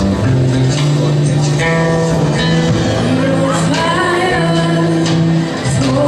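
Live worship music: held instrumental chords and bass notes, with singing voices over them.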